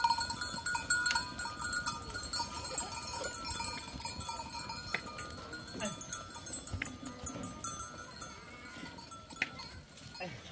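Bells on a herd of goats clinking and ringing as the herd trots past, the ringing dying away toward the end as the animals move on.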